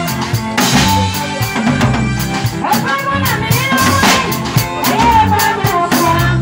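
Live band music: an electronic keyboard playing chords and a melody over a steady drum-kit beat, amplified through PA speakers.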